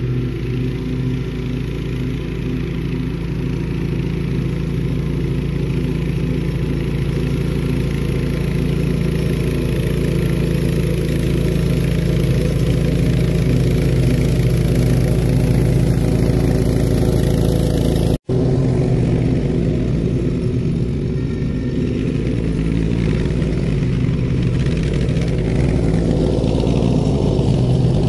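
Allis-Chalmers 712H garden tractor's engine running steadily on a test drive after an oil change, with a split-second break in the sound about two-thirds of the way through.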